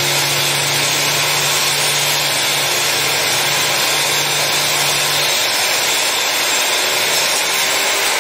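Handheld electric power tool running and cutting steadily, with a steady motor hum that drops out about five seconds in while the cutting noise goes on.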